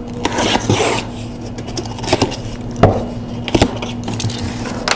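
Cardboard shipping box being cut open with a box cutter: the blade scraping along the packing tape, with a few sharp knocks as the box is handled.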